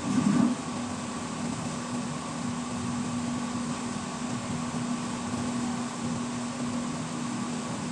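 Steady mechanical hum with a constant low tone, and a brief low thump right at the start.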